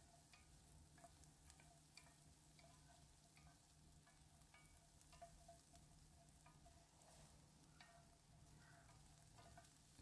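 Faint sizzling with scattered small crackles and pops: sliced carrots frying in melted butter in a large pan. A low steady hum sits underneath.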